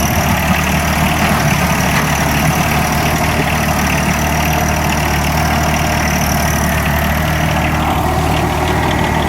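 John Deere compact tractor's three-cylinder diesel engine running steadily at an even speed.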